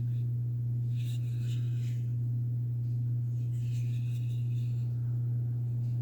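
A steady low electrical hum throughout, with faint light rustles about a second in and again past the middle.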